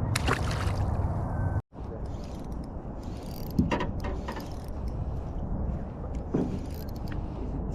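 Fishing reel being wound in with a ratcheting, geared whirr, over a steady low rumble of wind on the microphone; the sound cuts out briefly near the start.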